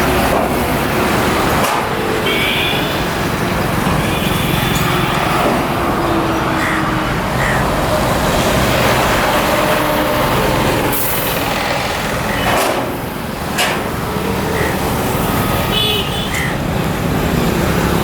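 Vehicle engines running amid roadside traffic noise, a heavy truck among them, with a few short hissing noises around the middle.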